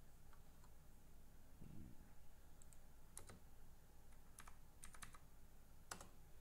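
Faint, scattered key presses on a computer keyboard: a handful of separate clicks typing a short search.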